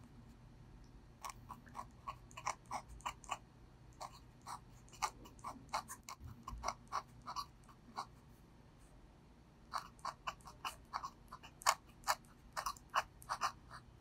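Brause Steno index-finger dip pen nib scratching on paper, writing Korean letters in quick short strokes. The strokes come in three runs, with a pause of a second or two between runs.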